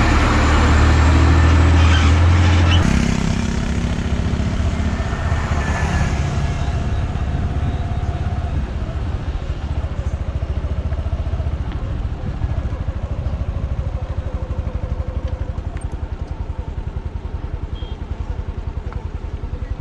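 Motor vehicle engine running steadily along with road noise. A louder, deeper engine drone in the first three seconds drops away sharply about three seconds in.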